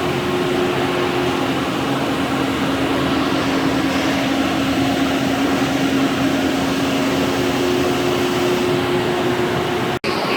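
Large lathe running steadily, an even machine noise with two low steady tones, breaking off for an instant near the end.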